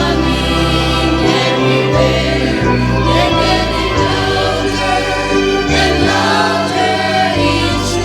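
Vocal group singing a gospel song in sustained chords over a bass line that steps from note to note.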